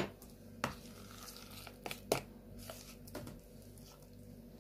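A spoon scraping thick mayonnaise down from the sides of a plastic mixing bowl, with a few soft clicks and taps as it knocks against the bowl and the mixer beaters.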